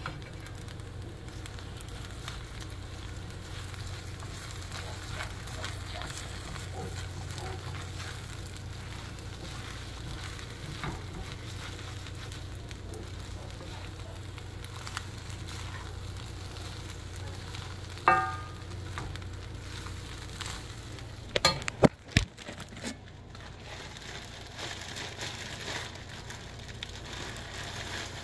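Shrimp and fried rice sizzling in hot pans on a gas stove, with the rice stirred and tossed by silicone-tipped tongs in a HexClad hybrid pan, over a steady low hum. A single ringing metallic clink comes about two-thirds of the way through, and a few sharp knocks of utensils or pans follow a few seconds later.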